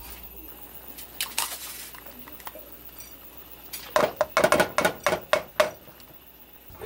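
Metal cooking utensil clinking and knocking against a pot or pan: a few light clinks about a second in, then a quick run of about eight sharp, ringing knocks.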